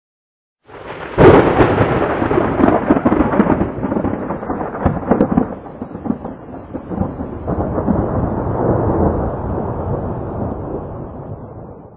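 Thunder: a sharp thunderclap about a second in, then a long rolling rumble with further cracks that swells again and dies away near the end.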